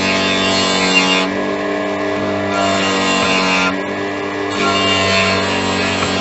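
Background music: a steady instrumental track with sustained tones, its treble thinning out briefly twice.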